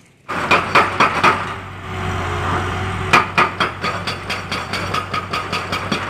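Hitachi Zaxis 200 excavator's hydraulic breaker hammering rock, a rapid run of sharp impacts, about five a second, over the steady hum of the excavator's diesel engine. It starts about a third of a second in.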